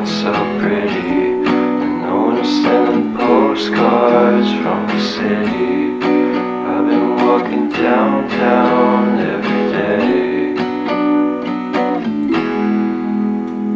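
Background pop song led by strummed acoustic guitar, with notes sustaining between strums.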